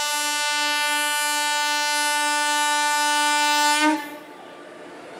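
A train horn held in one long, steady blast that cuts off about four seconds in, leaving quieter background noise.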